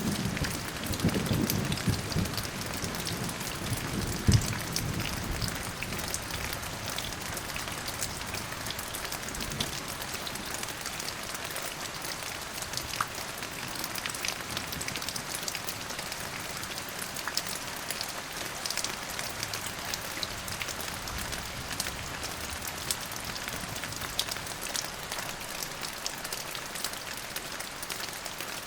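Steady rain with scattered drops pattering. A low roll of thunder dies away over the first few seconds, with one sharper clap about four seconds in.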